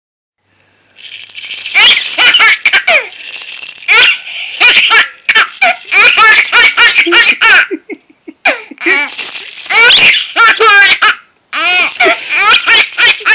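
Baby laughing hysterically in quick high-pitched bouts, starting about a second in, with brief breaks to catch breath around eight and eleven seconds in.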